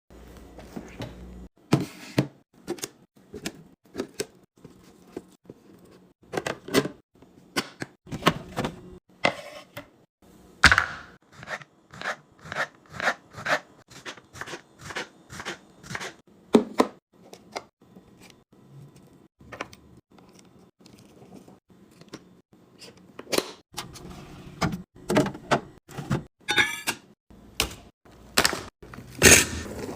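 A run of sharp knocks, taps and clatter from containers and food items being handled and set down while a fridge is organized, at times about two knocks a second.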